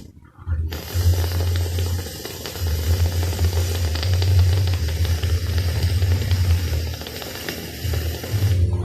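A mouth-made animal imitation: a low rumbling buzz under a steady breathy hiss, which breaks off and starts again several times.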